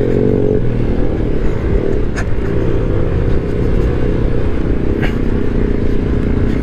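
Honda Ruckus scooter's 49 cc four-stroke single running steadily under throttle as it climbs a dirt-road hill. A couple of sharp clicks come about two and five seconds in.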